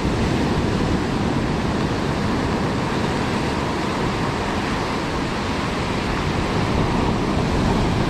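Steady rush of ocean surf with wind rumbling on the microphone.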